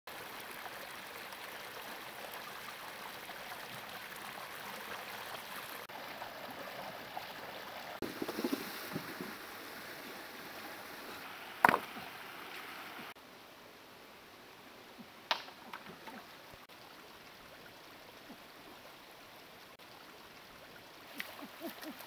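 Shallow rocky stream flowing steadily over stones, with some splashing and one sharp, loud knock of stone on stone about halfway through. After that the water sound drops to a quieter flow with a few lighter knocks.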